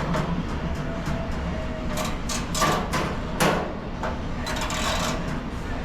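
Power driver with a 5/16 hex bit spinning briefly against a screw in the fryer's sheet-metal panel, then several sharp metal clanks and a rattle of parts. The screw is not catching its thread, so it has to be started by hand.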